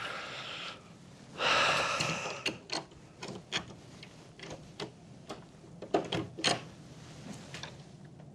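A key rattling and clicking in an old door lock, many small irregular metallic clicks over several seconds, the loudest about six seconds in, as the door is unlocked. A short breathy hiss comes about a second and a half in.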